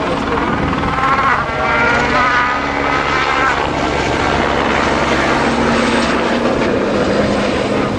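Helicopter droning steadily overhead, with an engine note that rises and shifts pitch between about one and a half and three and a half seconds in, like a rally car revving through its gears on the stage.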